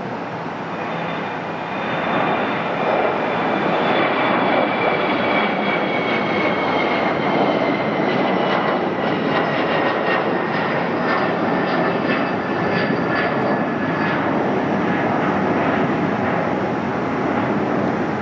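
Twin GE CF34-8E turbofans of an Embraer ERJ-175LR regional jet at takeoff thrust during lift-off and climb-out: a heavy roar that swells about two seconds in, with a high whine that slowly falls in pitch as the jet climbs away.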